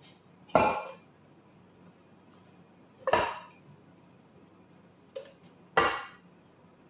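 Spatula knocking against a metal saucepan while sauce is scooped out of it: three sharp clanks with a short ring, and a lighter tap just before the last.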